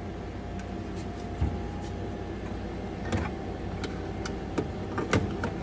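A metal slot machine power supply box being set onto its rail tracks and slid into place: a few scattered knocks and light scrapes over a steady low hum.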